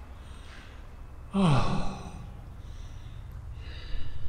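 A man lets out a breathy, frightened 'Oh' about a second and a half in, falling in pitch like a sigh. Fainter breathing is heard around it.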